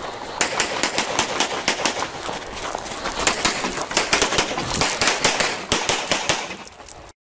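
Rapid pistol fire from competitors shooting side by side, several shots a second, overlapping and uneven, for about six seconds. It cuts off abruptly near the end.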